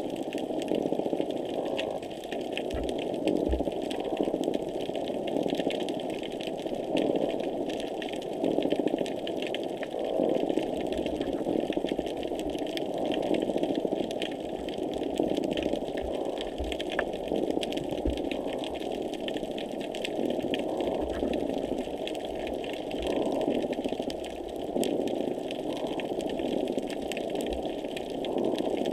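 Underwater noise picked up by a hydrophone below a pier: a dense, steady rushing hum that swells and fades every two to three seconds, with scattered crackling clicks over it. These are the repetitive noises found just below the surface here, heard at unusually high intensity.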